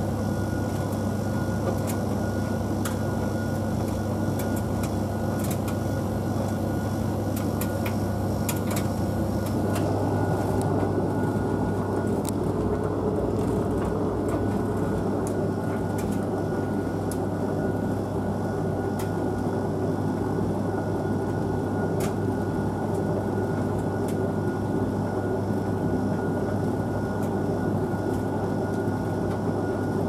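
Two tumble dryers, a Blomberg TKF8451 and a Hoover VHV68C, running on a timed dry programme: a steady motor-and-fan hum and rush of the turning drums, with scattered light clicks of items knocking inside the drum. About ten seconds in the sound changes, a low tone dropping out and the mid-range rush growing stronger.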